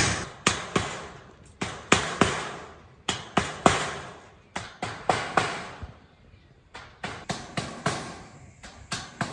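Hammer blows on a wooden frame, fastening welded wire mesh to the timber: a run of sharp knocks, about two to three a second, with a brief pause partway through.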